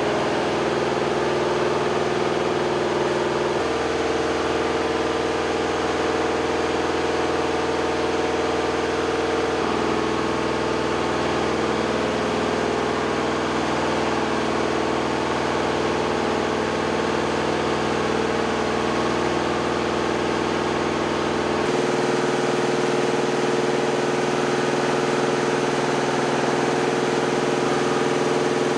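Steady machine hum, like an engine running at idle, made of several even tones. Its pitch mix shifts abruptly three times.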